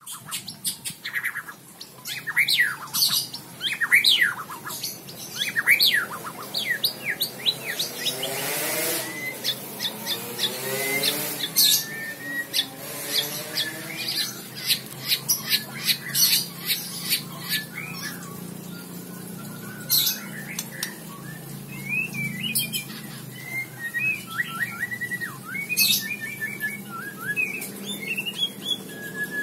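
White-rumped shama singing a fast, varied song of sweeping whistles and sharp clicks.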